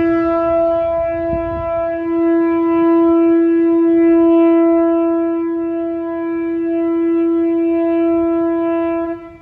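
Ship's horn of the tall ship Sørlandet sounding one long, loud, steady blast at a single pitch, cutting off near the end.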